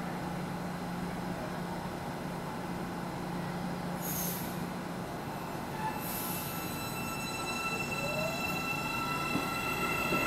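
Hyundai-Rotem 9500-series electric train pulling out of the platform. There are two short hisses, then from about halfway a high steady whine sets in, rising in pitch and growing louder as the train accelerates past.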